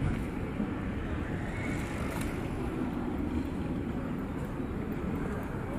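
Steady low rumble of background noise with no single distinct sound standing out.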